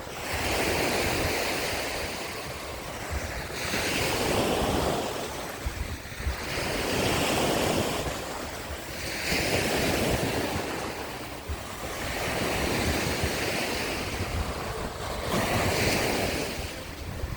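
Sea waves breaking and washing up the beach, surging and falling back about every three seconds, with wind rumbling on the microphone.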